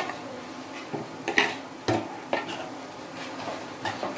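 Steel spoon stirring chopped okra into the spiced masala in a kadhai, with irregular clinks and scrapes of spoon on pan over a faint sizzle.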